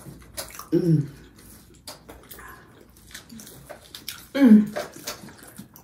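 Eating sounds: chewing and mouth clicks, with two short wordless vocal sounds about a second in and about four and a half seconds in, the second louder and falling in pitch, as reactions to the burning heat of the hot sauce.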